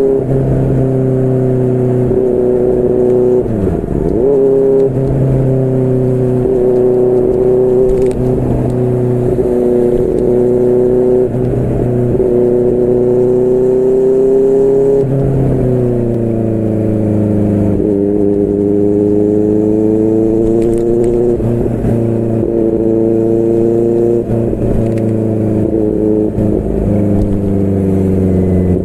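QJMotor SRK600's inline-four engine through a Yoshimura R11 exhaust, running on the move at a steady pitch with a brief drop about four seconds in. About halfway through the engine note falls, then rises and falls again as the throttle is worked.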